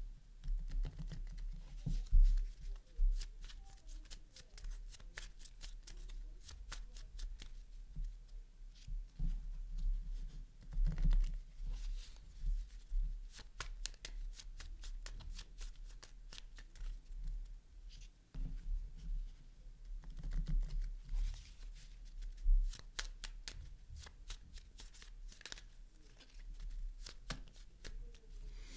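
A deck of playing cards being shuffled by hand, with the two halves riffled together and the deck shuffled from hand to hand, in bursts of rapid flicking clicks and soft low thumps.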